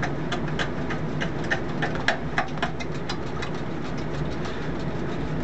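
A steady low mechanical drone, with a run of light, irregular clicks and ticks over the first three seconds or so.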